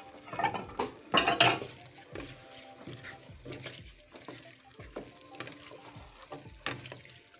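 Background music, with a few knocks and clatters of cookware from a stainless steel pot on a gas stove, the loudest about a second in.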